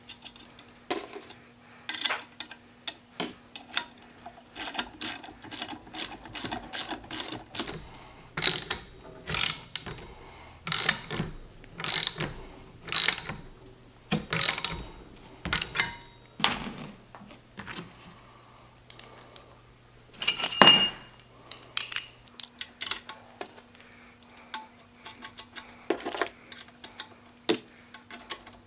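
Ratchet socket wrench clicking in short runs, tightening lock nuts on the bolts that hold the aerator's plugger spoons. There is a sharp metallic clink about two-thirds of the way through.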